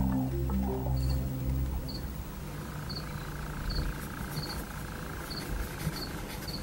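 Background music fades out in the first two seconds, giving way to night insects. A cricket makes a high double chirp that repeats about every three-quarters of a second, over a steady insect drone.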